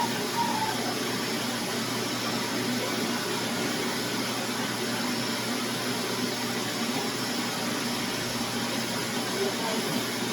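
Vacuum cleaner running steadily, an even, unbroken noise.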